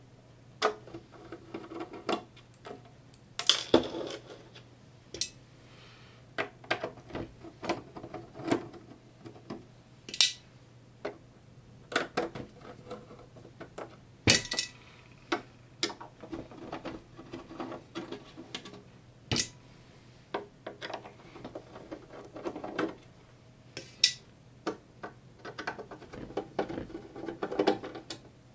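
Handwork on a Pioneer DJM-400 mixer's top plate: a screwdriver working its screws, with small metal parts clinking and clattering into a steel parts tray. The clicks and clinks are sharp and come at irregular intervals, a few seconds apart.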